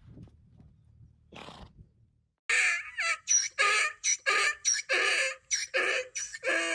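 Donkey braying: after a quiet start, a fast run of loud, harsh hee-haw calls at about three a second, alternating squeaky high notes with lower rasping ones.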